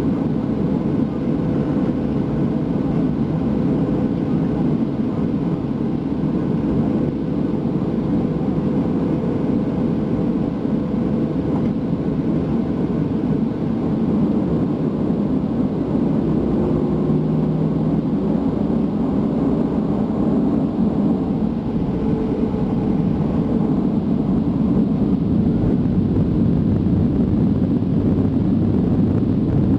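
Steady cabin noise of a Boeing 737-700 with its CFM56-7 turbofan engines running: a continuous low drone with a faint steady hum, heard from inside the passenger cabin and growing slightly louder near the end.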